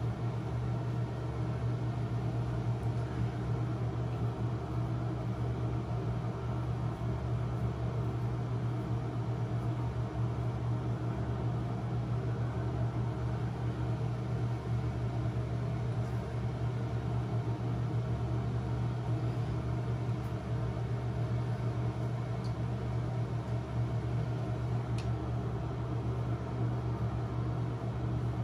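Steady low mechanical hum of a small motor, with an even hiss above it, running unchanged throughout.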